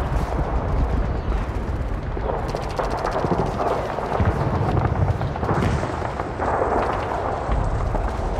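Sustained battle noise: continuous gunfire mixed with the heavy booms of artillery and explosions, with a run of rapid fire about two and a half seconds in.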